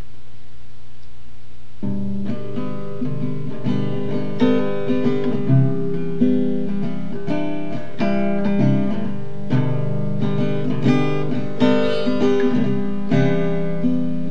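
Music: an acoustic guitar picking a repeating pattern of notes over a steady held low tone. The held tone sounds alone at first, and the guitar comes in about two seconds in.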